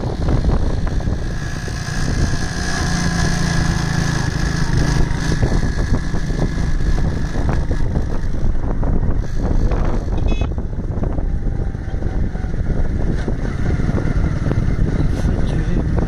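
A vehicle running steadily along a road, with engine and road noise and wind buffeting the microphone.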